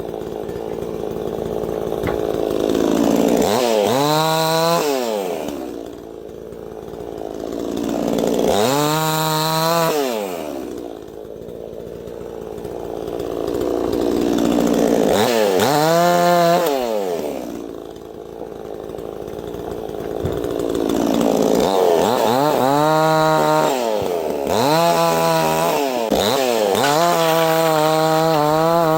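68cc two-stroke gas chainsaw revving up and dropping back about six times, with louder, rougher stretches of running in between as it cuts wood.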